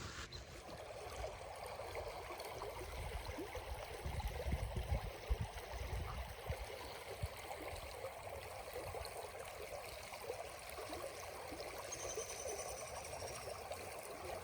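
Creek water running steadily over rocks, with some low rumbling in the middle and a faint high falling whistle near the end.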